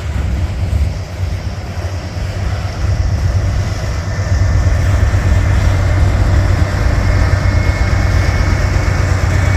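A distributed-power diesel locomotive in a freight train runs hard under load as it comes up, a deep steady engine drone that grows louder about three seconds in. A thin high whine sits over it in the second half.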